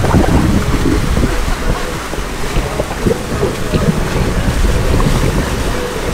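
Wind buffeting the microphone over water rushing and splashing around a sailing yacht under way on its engine, with irregular short splashes throughout.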